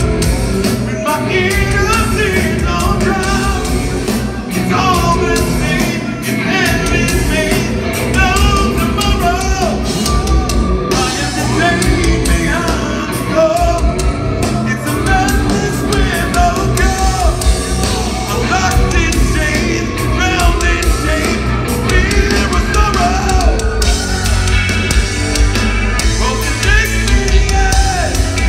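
Progressive metal band playing a song live, with drums, bass, guitar and keyboards under a man singing lead.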